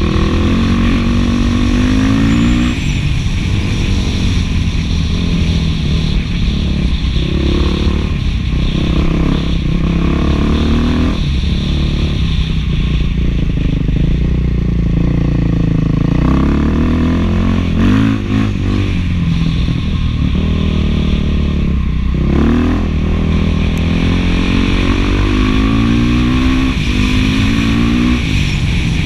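Beta 500 dual-sport's single-cylinder four-stroke engine running through an FMF 4.1 aftermarket muffler, pitch climbing and dropping again and again as the throttle is opened and rolled off while riding.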